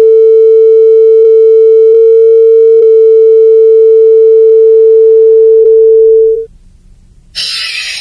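A loud, steady electronic beep tone, a censor bleep blanking out the reader's name, held for about six seconds with a few faint clicks and then cut off. Shortly before the end a burst of hiss starts.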